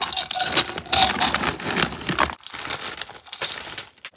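Dry dog kibble rattling and rustling as a plastic scoop digs into a container of it and pours it into a zip-top plastic bag, the bag crinkling. Busiest for about the first two seconds, lighter after.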